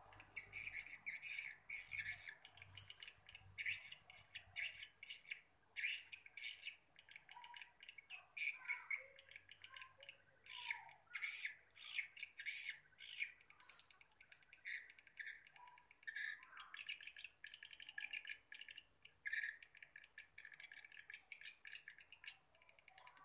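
Swiftlets twittering: a dense stream of rapid, high chirps, with two sharp rising squeaks, one about three seconds in and one about fourteen seconds in.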